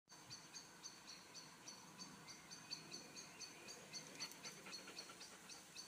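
Faint, high-pitched chirping repeating evenly a few times a second, insect-like, over an otherwise quiet background.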